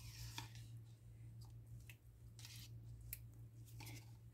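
Faint, soft sounds of yogurt being spooned from a tub onto marinating mutton in a glass bowl: a few light scrapes and taps, over a steady low hum.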